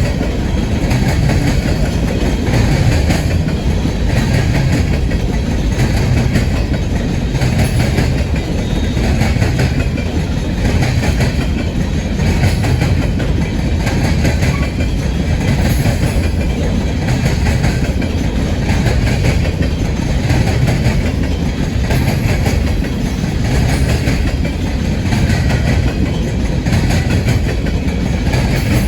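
Freight train cars rolling past, wheels clattering steadily over the rails in a loud, continuous rumble.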